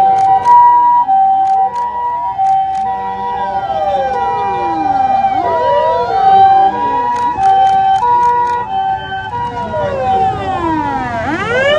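Several emergency-vehicle sirens sound at once. A Japanese ambulance's two-tone hi-lo siren alternates steadily, overlaid by wailing sirens that sweep up and down. Near the end another siren winds up from low to high.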